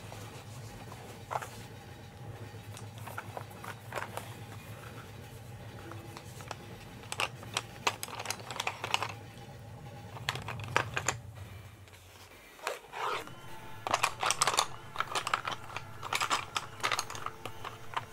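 Wooden coloured pencils clicking and clattering against each other as they are handled and sorted, in quick runs of light taps. The taps come in two spells, one in the middle and one near the end. Underneath runs a steady low hum that stops about two-thirds of the way in.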